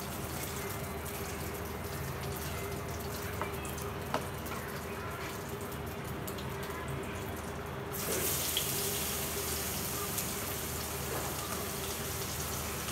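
Steady hiss of hilsa fish frying in oil in a pan, turning brighter and a little louder about eight seconds in.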